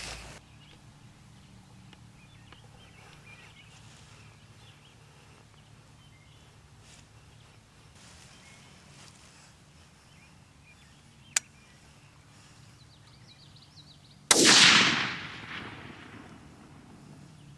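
A single rifle shot about three-quarters of the way through, sudden and loud, its report dying away over about two seconds, against quiet field ambience with faint bird chirps. A short sharp click comes a few seconds before it.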